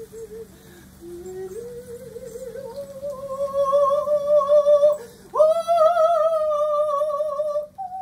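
A man singing wordless, drawn-out notes in a high voice with a wavering vibrato, sliding slowly upward. The song breaks off about five seconds in, then swoops back up into a loud held note, and shifts to a steadier, higher note near the end.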